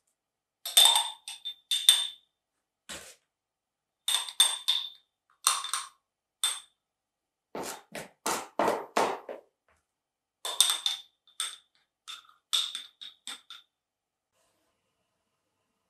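Metal spoon scooping thick brownie batter from a ceramic bowl and knocking it off against small glass jam jars: short clusters of clinks, taps and scrapes, some with a ringing glassy tone.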